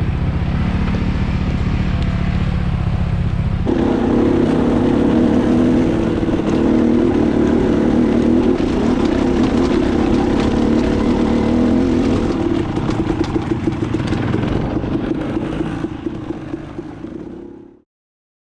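Dirt bike engine running under way, stepping up in pitch about four seconds in as it picks up speed. It weakens over the last few seconds and then cuts off abruptly.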